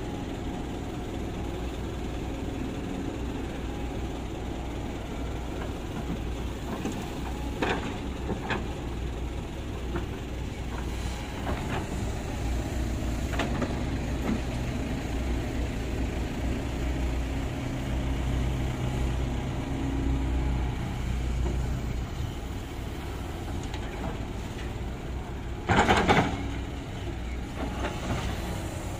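Kobelco hydraulic excavator's diesel engine running under load while it digs and loads soil, its note rising and falling as the hydraulics work. There are occasional knocks from the bucket, and the loudest is a short clatter about three-quarters of the way through.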